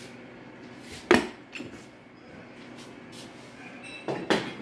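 Kitchen clatter at the stove: a sharp knock about a second in, the loudest sound, and another couple of knocks near the end.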